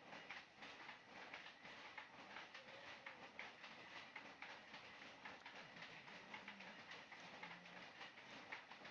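Faint, rapid, irregular clicking and light slapping of hands patting and smoothing wet mud.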